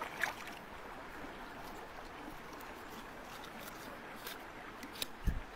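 River water running steadily, with a few light clicks and a short low thump near the end.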